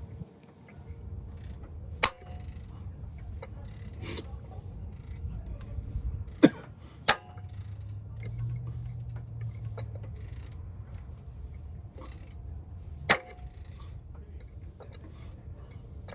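GM 2.4 L dual-overhead-cam four-cylinder engine running with a steady low hum and irregular light ticking, broken by a few sharp, louder clicks. This is the unexplained noise the owner traces to the overhead cams.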